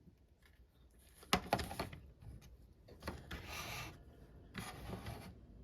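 Handling noises: a cluster of sharp clicks and knocks about a second and a half in, then two spells of rubbing and rustling.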